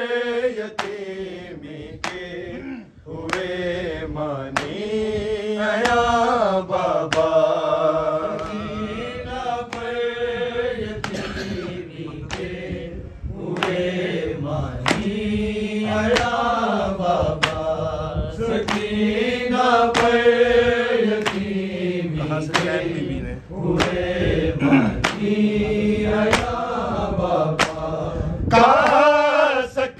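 Men's voices chanting an Urdu noha, a Shia lament, without instruments, in long drawn-out melodic lines. A steady beat of sharp strikes about once a second keeps time, typical of matam, the hand-beating of the chest that accompanies a noha.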